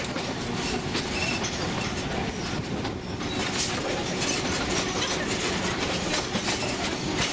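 Narrow-gauge sugar-cane railway train rolling along, heard from its open-air deck: a steady rumble of wheels on rails with irregular clicks and clatter from the track.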